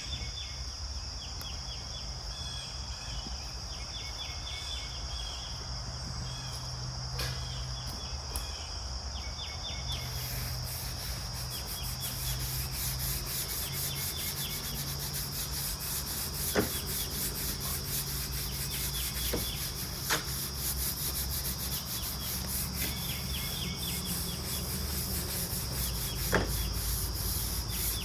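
Outdoor background of insects chirring steadily, with groups of short chirps over a low hum. From about a third of the way in, a rough rubbing, scraping noise joins it, broken by three sharp knocks.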